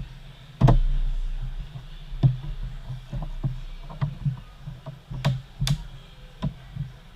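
Hard objects being handled on a work surface: a thud just under a second in, then irregular light knocks and clicks, with two sharper clicks about five and a half seconds in.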